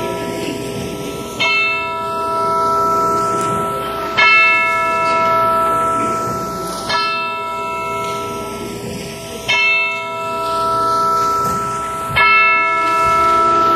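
A single church bell tolling, struck about every two and a half to three seconds. Each stroke rings on into the next, five strokes in all.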